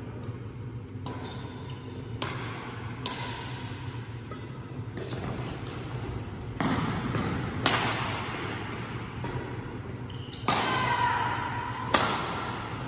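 Badminton rackets striking the shuttlecock in a doubles rally: about ten sharp, echoing hits at uneven intervals, with a few short high squeaks in between.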